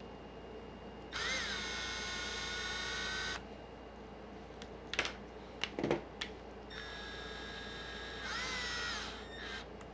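Small cordless drill used as a screwdriver, run in two bursts of about two seconds each with a steady whine that swoops up in pitch as it spins. A few light clicks and knocks come between the bursts.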